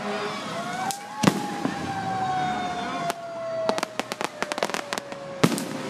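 Fireworks going off: sharp bangs, then a quick run of crackling reports from about three and a half seconds in. Under them a fire truck siren winds slowly down in pitch.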